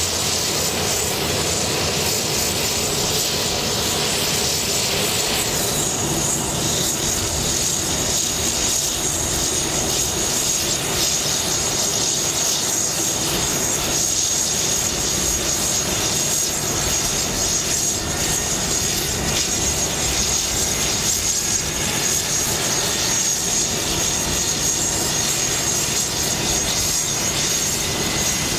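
Sikorsky S-97 Raider on a ground run, its GE YT706 turboshaft engine running with the coaxial rotors and pusher propeller turning: a steady, loud turbine whine over the rotor and propeller noise. The whine steps slightly lower in pitch about five seconds in and then holds steady.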